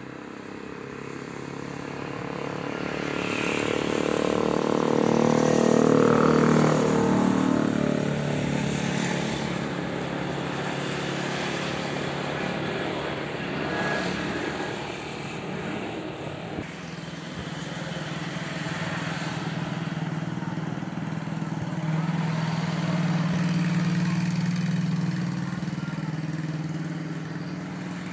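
Twin-engine Boeing 737 jet airliner on its takeoff run at full power. The engine roar swells to a peak about six seconds in, with falling tones as it passes, then carries on as a steady roar while the jet climbs away.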